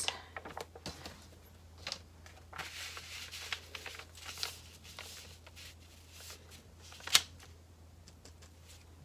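Quiet handling of a paper pattern piece and a fabric lining panel on a cutting mat: soft paper rustles and shuffles, with one sharp click about seven seconds in.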